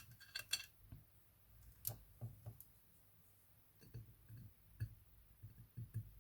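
Faint, scattered clicks and light taps from small crafting tools and polymer clay being handled on a work surface.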